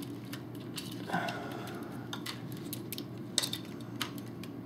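Plastic parts of a custom Transformers Devastator action figure being handled and shifted, giving a few scattered faint clicks and rattles.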